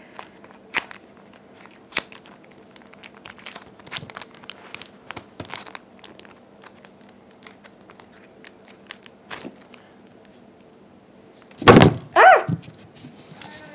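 Foil booster pack wrappers and trading cards crinkling and crackling as they are handled, in many small sharp clicks. Near the end come a couple of much louder bumps.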